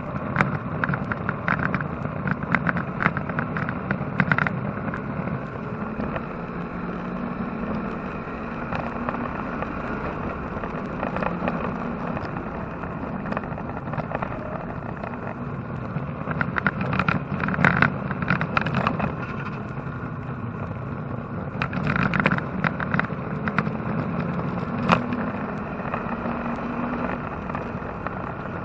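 Chevy-engined Porsche 944 race car's engine running steadily at speed on track, with several short spells of rattling clatter over it.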